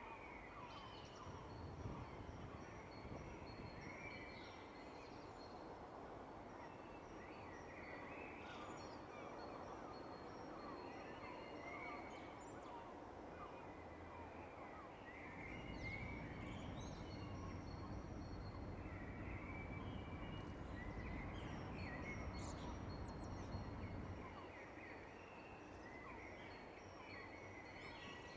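Several birds singing at dawn: overlapping short chirps and trills that repeat throughout. About halfway through, a low rumble with a steady hum comes in for about eight seconds, then fades.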